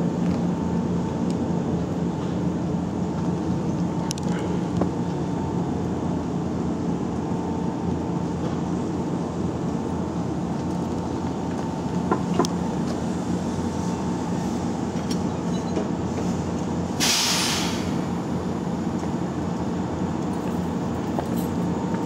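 Yoro Railway 620 series electric train at a standstill or crawl in the depot, its on-board equipment humming steadily, with a few light clicks and a short, loud hiss of released air about three-quarters of the way through.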